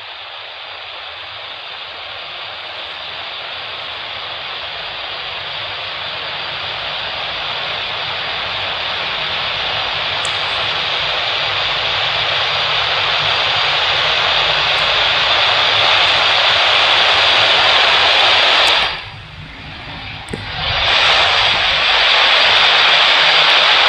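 Jet airliner engines growing steadily louder as the aircraft draws closer, a dense rushing noise. About 19 seconds in the sound drops sharply for a second or two, then returns at full strength.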